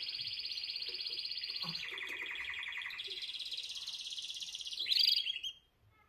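Canary singing: a chain of fast trills, each a rapid run of the same note held for a second or two before switching to a new pitch. A louder final trill about five seconds in, then the song stops.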